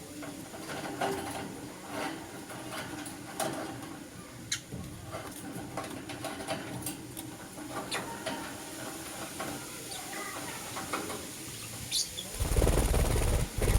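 Young lutino lovebirds chirping faintly, with many scattered sharp clicks. About a second before the end there is a loud, low, rumbling burst of noise.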